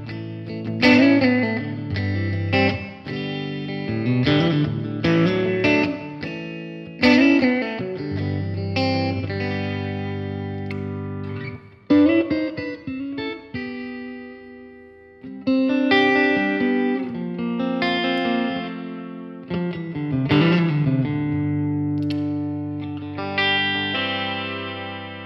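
Telecaster-style electric guitar played through the clean channel of a Blackstar HT-5R MkII 5-watt valve combo amp: chords struck and left to ring, with picked single notes between them and a quieter stretch of held notes about halfway through.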